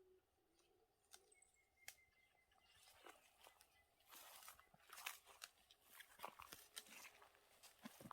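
Faint crackling and rustling, a few scattered clicks at first and then busier from about three seconds in.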